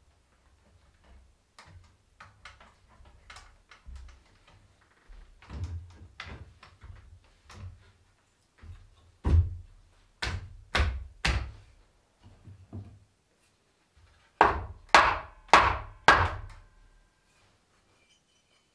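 Hand striking the frame of an old chestnut table: a run of light taps, then two groups of four loud wooden knocks about half a second apart.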